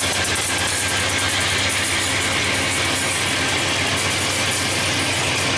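Providence and Worcester freight train passing at close range: the diesel locomotive's engine running as it pulls away, with covered hopper cars rolling over the rails. The sound holds steady throughout.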